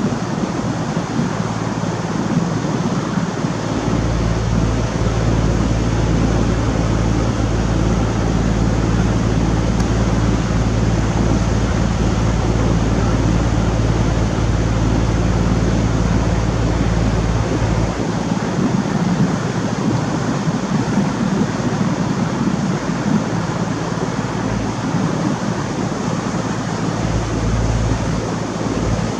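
Steady drone of a boat's engine under way, with a rush of wind and water over it. A deeper hum sits under it from about four seconds in until about eighteen seconds.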